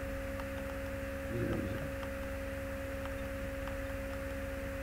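Steady electrical hum from the recording setup, with a constant whine held at one pitch over it. A few faint clicks and a brief low murmur about a second and a half in.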